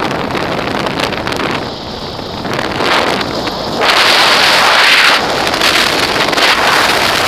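Wind rushing hard over the microphone of a camera on a motorcycle at road speed, with the bike's running noise underneath. The rush grows louder for about a second, about four seconds in.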